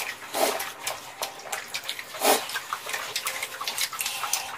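Close-up eating sounds from a mouthful of spicy tteokbokki: wet chewing and smacking clicks, with two short puffs, about half a second and two seconds in.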